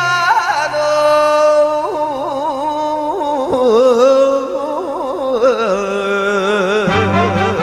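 A man sings a long, drawn-out phrase in the enka style, holding his notes and bending them with wide vibrato and wavering ornaments. Sparse backing with a low held note sits underneath. The band comes back in fully near the end.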